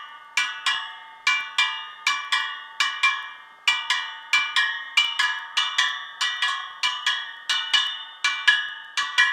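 Spokes of a freshly rebuilt 40-spoke Harley-Davidson wheel being tapped one after another with a small adjustable spanner, each giving a short metallic ping that rings and dies away, about three a second. The notes sound much alike, the sign of evenly tensioned spokes.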